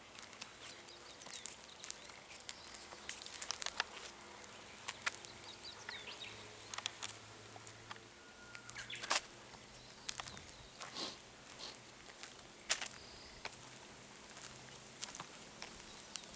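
Footsteps outdoors: irregular sharp clicks and light crunches, with a few faint short bird chirps and a low steady hum beneath.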